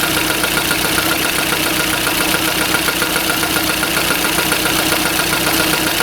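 Car engine idling steadily, with a fast, regular light tapping running through it.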